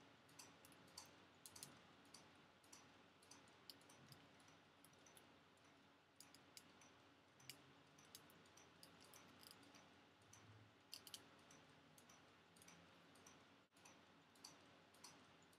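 Near silence: room tone with faint, irregular small clicks and ticks scattered throughout.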